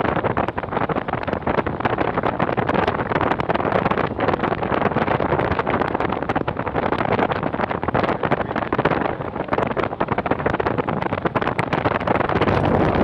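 Vehicle driving on a rough mountain road: a steady rush of engine, tyre and wind noise on the microphone, broken by frequent small knocks and rattles.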